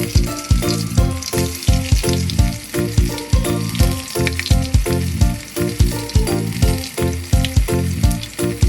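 Background music with a steady beat and pitched notes, over a hissing, crackling texture.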